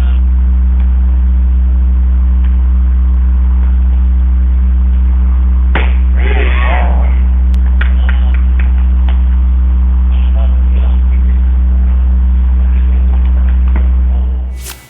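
A loud, steady low hum, with faint distant voices and a few light knocks over it. It cuts off suddenly near the end.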